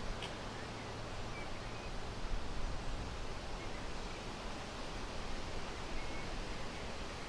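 Wind rustling through tree leaves, a steady hiss, with a few faint short bird chirps.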